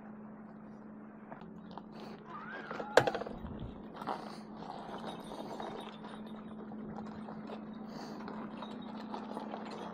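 Electric bike riding quietly: a steady low hum with faint knocks and rattles, and one sharp click about three seconds in.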